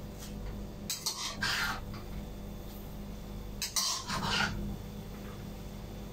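Spatula and tongs stirring and tossing mung bean sprouts in a wok, two scraping, rustling strokes about three seconds apart, over a steady low hum.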